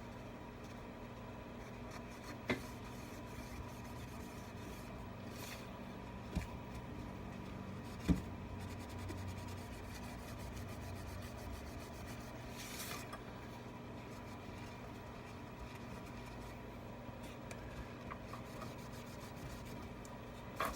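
Faint rubbing and scraping as old screen adhesive is cleaned off an iPad frame, with a few light taps, over a steady background hum.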